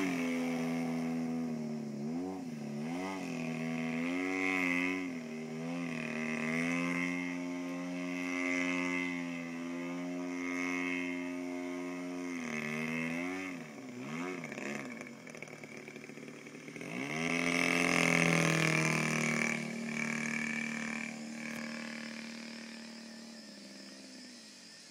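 Gas two-stroke engine of a radio-controlled Yak 55 aerobatic model plane running in flight, holding steady for stretches, with its pitch swinging up and down several times as it manoeuvres. It fades near the end as the plane moves away.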